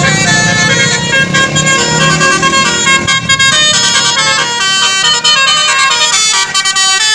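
Bus telolet horn, a Basuri-type multi-trumpet musical horn, playing a quick melody of stepped notes, several horn tones sounding together.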